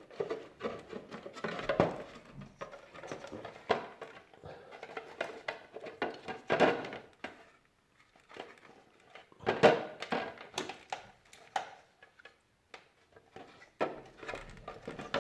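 Irregular clicks, knocks and light rattles of plastic and metal parts of a Moulinex grinder being handled and fitted back together, with a few sharper knocks about two, six and a half and nine and a half seconds in.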